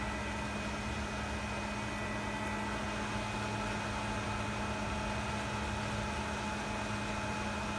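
WDS-620 BGA rework station running: a steady whir of its hot-air blowers and cooling fans, with a low hum and a few faint high tones that do not change.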